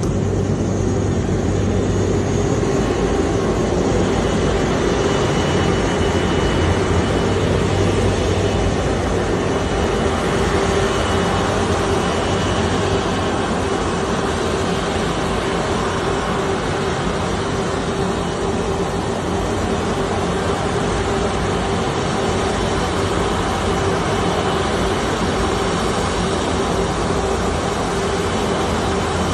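Twin-engine jet airliner's engines running steadily at taxi power: a continuous rushing noise with a steady hum and a faint high whine.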